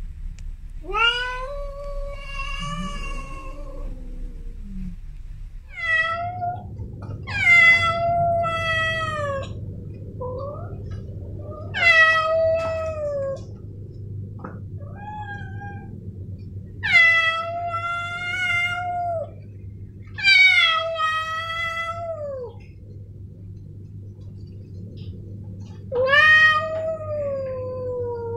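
Male cat yowling: about nine long, drawn-out meows, each a second or two and spaced a few seconds apart, several sliding down in pitch at the end. A lower second voice sounds under the first call.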